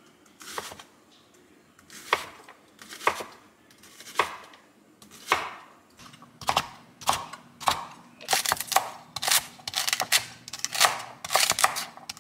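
Santoku knife chopping vegetables on a wooden cutting board: single strikes about a second apart at first, then quicker chopping, about two a second, from about six seconds in.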